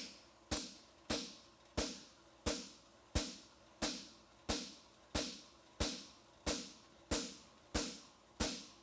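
Farrier's hammer striking a hot steel bar shoe on the anvil face in a steady rhythm, about three blows every two seconds, each with a short metallic ring.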